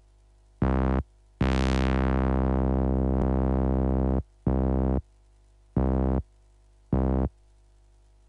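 A low, buzzy synthesizer tone from FL Studio's Sytrus, played as five notes at the same pitch: a short hit, a long held note that starts bright and darkens as its top end sweeps down, then three short hits.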